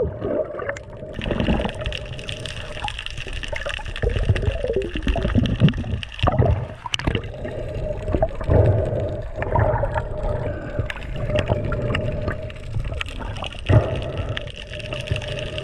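Underwater sound picked up by a freediver's action camera: muffled water movement and gurgling with a low rumble, a steady hum underneath, and a few sharp knocks.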